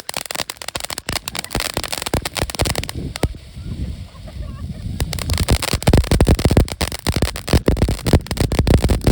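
Mystical Fireworks Powder Keg ground fountain firework burning with a dense crackle of rapid sharp pops. It thins out for a couple of seconds about three seconds in, then crackles hard again.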